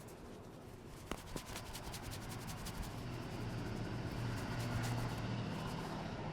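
Hands massaging and rubbing hair and scalp, a dense run of fine crackling and scratching, with two sharper clicks about a second in. A low hum swells from about halfway.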